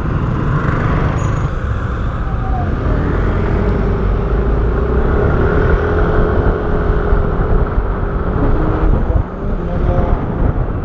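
Yamaha motor scooter pulling away from a stop and accelerating, its engine note faint under a heavy, steady low rumble of wind and road on the rider's microphone.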